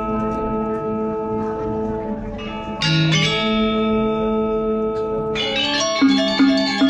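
Balinese gamelan playing a tabuh kreasi piece: bronze metallophones and gongs ring on in long, sustained tones, a fresh loud stroke lands about three seconds in, and near the end a fast, regular pulse of struck notes begins, a little over two a second.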